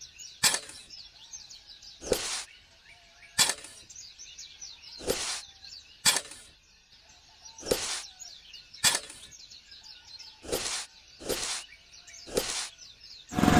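About ten short, sharp knocks at uneven intervals of roughly a second, with faint bird chirping between them.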